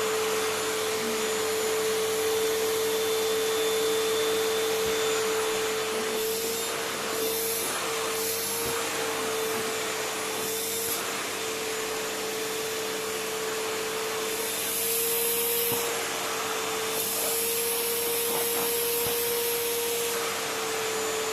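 Vacuum cleaner running continuously with a steady motor whine and rushing air, being used to vacuum a cat's fur; the hiss of the suction changes several times as the nozzle moves.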